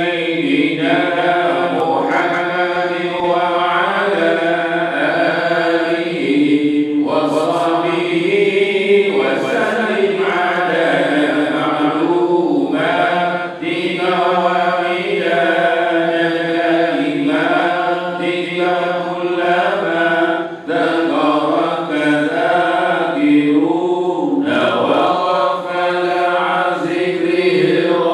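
A man's voice reciting the Quran in Arabic in a melodic chant (tilawah), holding long ornamented notes that rise and fall, heard through a microphone. The recitation pauses briefly twice, about halfway and two-thirds of the way through.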